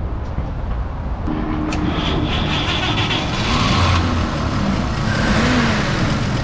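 The original inline six-cylinder engine of a 1950 Chevrolet 3500 pickup running, heard from the open engine bay. Its revs rise and fall gently a few times in the second half.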